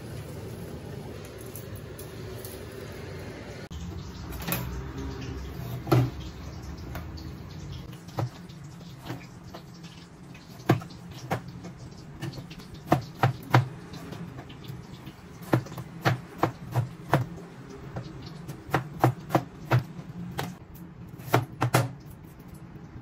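Kitchen knife slicing tomatoes on a cutting board: a run of sharp knocks in quick, irregular groups, starting about ten seconds in.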